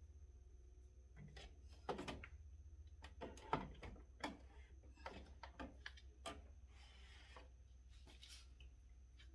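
Faint scattered knocks and clatter of food containers being handled and set down while a fridge is stocked, with a short rustle about seven seconds in, over a low steady hum.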